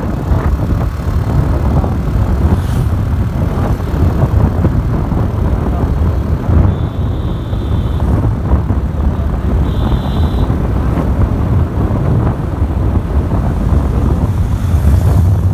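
Wind buffeting the phone microphone on a moving motorcycle, with the bike's engine and road noise running steadily underneath.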